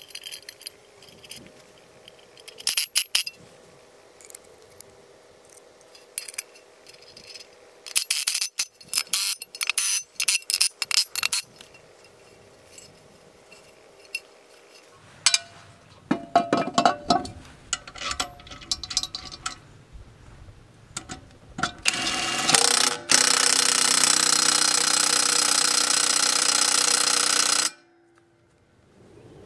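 Metal clinks and knocks as the Honda HRU197's blade disc and swing blades are handled, then, about 22 seconds in, a cordless drill-driver running loudly and steadily for about five seconds before cutting off sharply.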